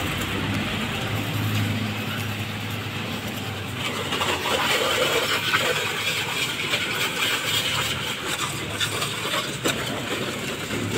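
Self-service pressure washer running, a steady pump hum under the hiss of its water jet spraying down a motor scooter during the final rinse.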